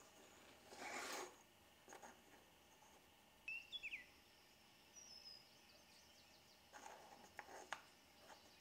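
Very quiet handling of small pine strips on a wooden workbench: a brief rustle about a second in and a few faint wooden clicks, more of them near the end. A few short, high chirping glides come midway.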